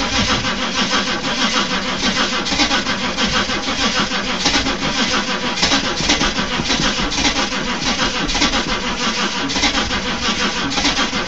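Chevy 6.2 diesel V8 being cranked over by its starter on a cold start, an even, rhythmic cranking that goes on for the whole stretch without the engine catching. It is close to firing but does not start.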